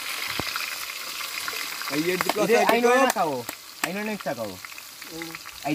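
Sliced onions and green chillies frying in hot oil in a steel kadai: a steady sizzle.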